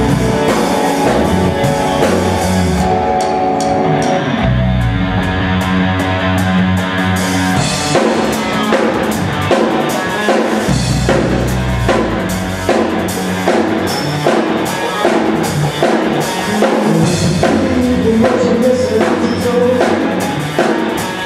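Live band playing: a drum kit keeping a steady beat under held chords and a bass line, with no singing.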